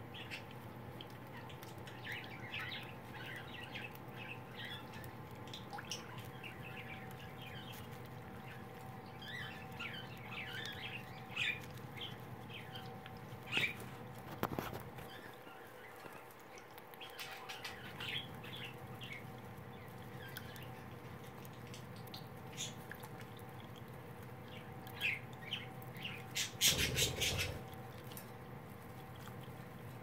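Cockatiel picking at and tearing a paper towel and Timothy hay foraging toy: scattered small rustles and crinkles, mixed with short bird chirps, and a louder burst of tearing and rustling near the end.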